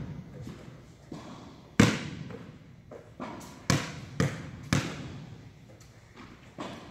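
Basketball bouncing on a hard indoor court: about six separate bounces with an echo in the large hall, the loudest about two seconds in.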